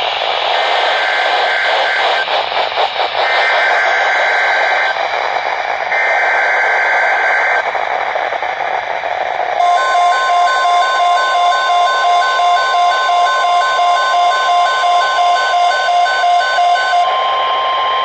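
NOAA Weather Radio EAS alert coming through a Midland weather radio over static: three short, shrill digital data bursts (the SAME header that encodes the alert), then from about ten seconds in the steady 1050 Hz attention tone with the radio's own alarm beeping over it about twice a second. The tone signals that a warning broadcast is about to follow.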